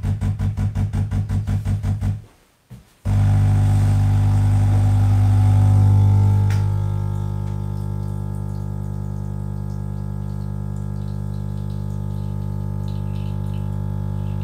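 The DeLonghi La Specialista Arte's vibratory pump pulling an espresso shot. It pulses in rapid short beats, several a second, for about two seconds, as in pre-infusion, stops briefly, then runs with a steady loud buzz while the espresso flows. The buzz swells for a few seconds and then settles a little lower.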